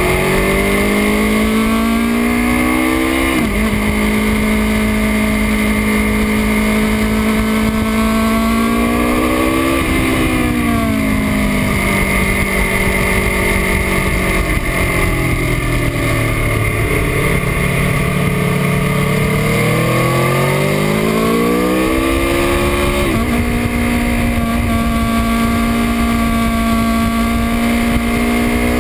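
A 2018 Aprilia Tuono RR's V4 engine, ridden hard on a race track. The pitch climbs under acceleration and dips briefly at upshifts, falls away and stays low under braking and downshifts through a slower section, then rises again, over a steady rush of wind noise.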